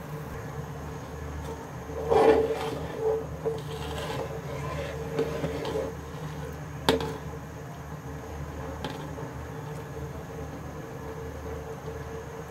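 Metal spoon stirring rice in boiling water in an aluminium pot, scraping against the pot's sides and bottom; the scraping is loudest about two seconds in, with one sharp knock of metal on metal about halfway through. A steady low hum runs underneath.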